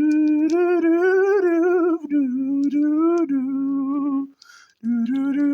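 A man humming a tune in long, held notes, in two phrases with a short break about four seconds in.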